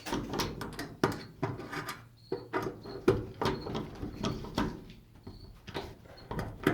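A screw being driven into the garage door's metal fittings by hand, with irregular clicks, knocks and scrapes of the screwdriver on the screw head and a few brief squeaks.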